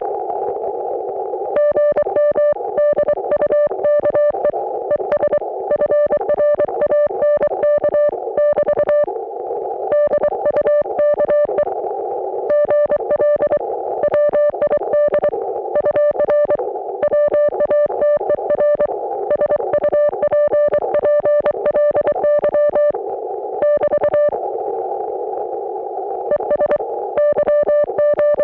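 Morse code (CW) signal received on an Icom IC-718 ham radio transceiver: a steady mid-pitched beep keyed on and off in dots and dashes. Narrow-filtered band noise hisses in the gaps between characters and words.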